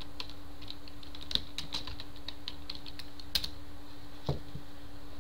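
Typing on a computer keyboard: a quick, uneven run of keystrokes that stops about three and a half seconds in, then a single duller knock about a second later, over a faint steady hum.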